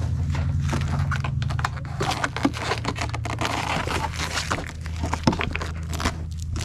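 Plastic trim piece being pried out of a Jeep Wrangler JL's factory front bumper: a run of irregular plastic clicks, creaks and scrapes. A steady low hum runs underneath.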